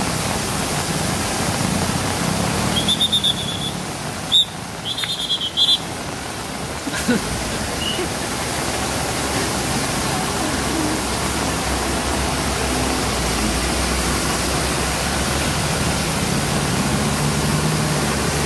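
Muddy floodwater rushing across a road, a loud, steady rush of water, with heavy trucks' engines running low underneath as they drive through it. A few short high beeps sound about three to six seconds in.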